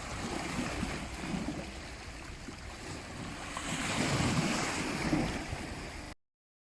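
Sea waves: a steady wash of surf that swells about four seconds in, then cuts off abruptly near the end.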